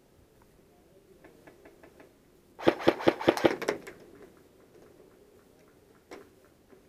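Airsoft gunfire: a rapid string of about seven sharp cracks about two and a half seconds in, lasting about a second, with fainter scattered ticks before and after and one more single crack near the end.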